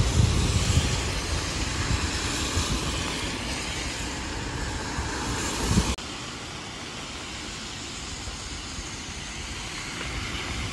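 Cars driving past on a rain-soaked road, tyres hissing on the wet asphalt over a low rumble. About six seconds in, the sound cuts to a steadier, quieter hiss of rain.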